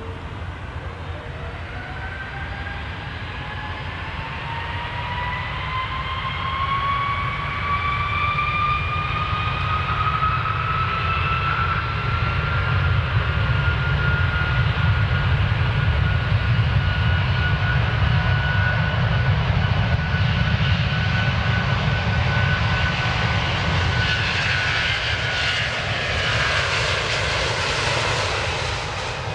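Airplane engines powering up for takeoff: a whine rises in pitch and then holds steady over a low rumble, growing louder, with a broader rushing roar building near the end.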